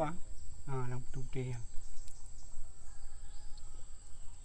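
A man's voice speaks briefly in the first second and a half, then fades to faint background noise. A thin, steady, high-pitched whine runs throughout.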